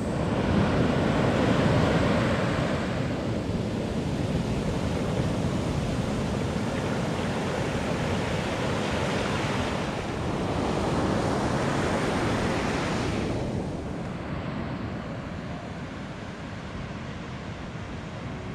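Sea surf breaking and washing up a sandy beach at the water's edge, in two big surges, one about two seconds in and another near the middle, then a little quieter toward the end.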